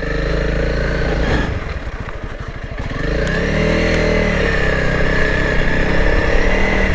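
Honda CRF300L Rally's single-cylinder engine running as the bike rides on, easing off about two seconds in, then pulling harder and picking up speed from about three seconds.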